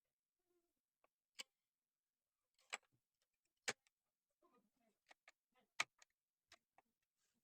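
Irregular light clicks and knocks, about a dozen, with the sharpest a little under three seconds in, near four seconds and near six seconds in: small hard parts or tools being handled during disassembly.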